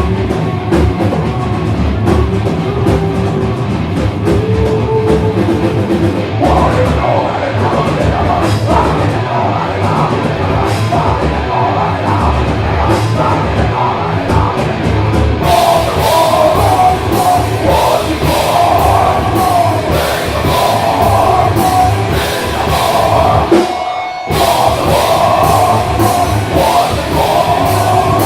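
Live rock band playing loud, with a full drum kit driving the beat. A little past halfway the cymbals come in harder, and near the end the band stops for a split second before crashing back in.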